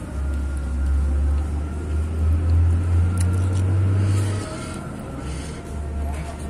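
A steady low rumble, loudest over the first four seconds or so, easing off for about a second and then returning.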